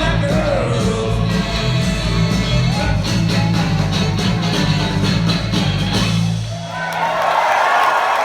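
Live rock band with a steady bass line and drums playing the end of a song. The music stops about six and a half seconds in and the crowd breaks into cheering and applause.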